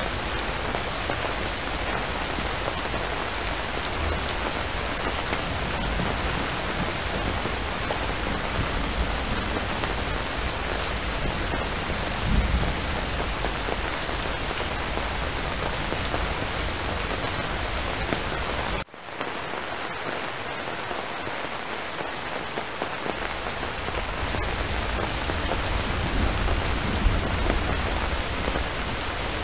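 Steady heavy rainfall, with a short low rumble of distant thunder about twelve seconds in and a longer one swelling near the end. The rain cuts out for an instant about two-thirds of the way through.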